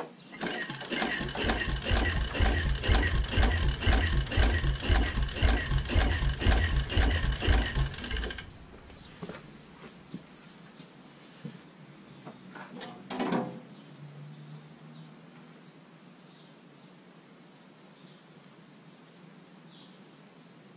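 Engine of a small green walk-behind tractor running with an even chugging beat, then cutting out suddenly about eight seconds in. A few seconds later comes a short falling tone and a brief low hum, then only faint clicks.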